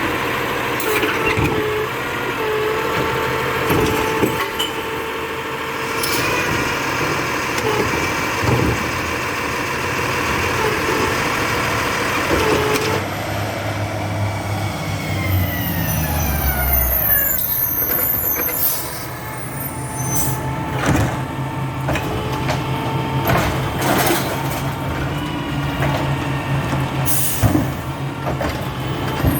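Labrie Expert 2000 recycling truck working: diesel engine with a steady hydraulic whine. Partway through, the whine falls away in pitch, leaving the engine running lower, with repeated clanks and knocks.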